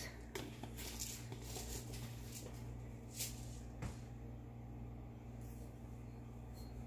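Quiet kitchen room tone: a steady low electrical hum, with a few faint clicks, the clearest two just after three seconds in and just before four.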